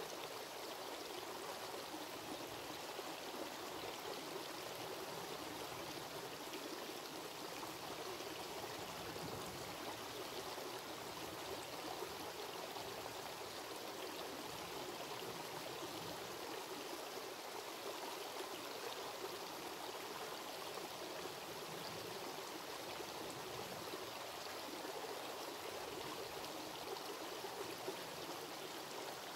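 Shallow creek water running over rocks: a steady, even flow.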